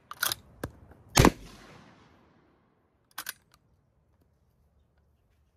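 Action of a Winchester Model 1901 10-gauge lever-action shotgun being worked after a shot: several sharp metallic clacks as the lever is thrown open and shut to eject the fired hull and chamber the next shell, the loudest about a second in. Two quick lighter clicks follow near three seconds.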